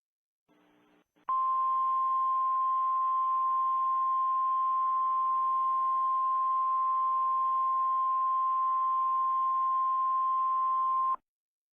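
Emergency Alert System attention tone: a single steady high tone near 1 kHz, held for about ten seconds over a faint hiss. It starts about a second in and cuts off abruptly near the end.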